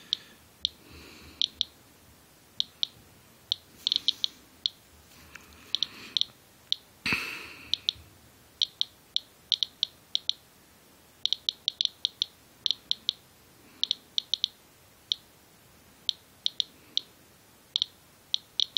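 Inspector USB Geiger counter chirping once per detected count, about three chirps a second in irregular clusters, reading about 170 to 200 counts per minute against a normal background near 40: the owner takes this for radioactive contamination on the hood of his winter coat. A brief rustle or bump comes about seven seconds in.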